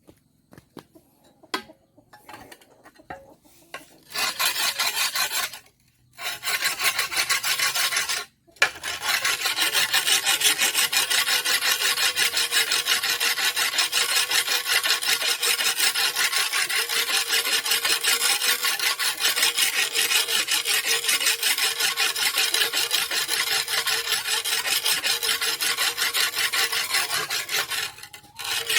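A metal tool blade being sharpened by hand: fast, steady rasping strokes of metal scraping on an abrasive. It starts about four seconds in after a few light clicks, stops briefly twice, then runs without a break.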